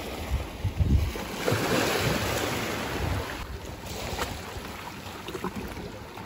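Wind buffeting the microphone over the wash of sea waves, dying down after about three seconds to a quieter background with a few faint clicks.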